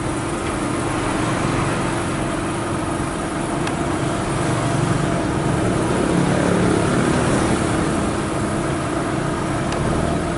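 River cargo barge's diesel engine running steadily while it manoeuvres in to dock, with a brief swell in level and pitch about six seconds in.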